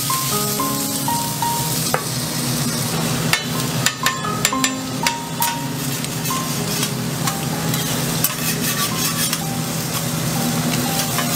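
Eggs and burger patties sizzling on a flat-top griddle, a steady frying hiss, with metal spatulas clinking and scraping on the steel plate in a cluster of sharp clicks between about three and six seconds in. Soft background music plays under it.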